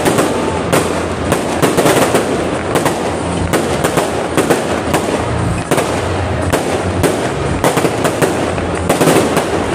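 Aerial firework shells bursting one after another in a fireworks display: a dense, irregular run of bangs, several a second, with no gaps.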